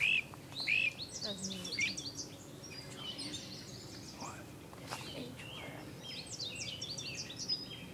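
Several songbirds calling and singing together: a few loud arched notes at the start, then quick runs of high, sharp notes about a second in and again near the end.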